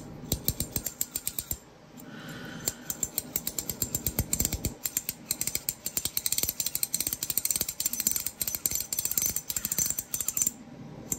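Hearthstone V2 ratchet haptic fidget coin being turned by hand, its one-way ratchet giving a rapid run of light metallic clicks. The clicking lulls briefly about two seconds in, then runs on densely and stops near the end.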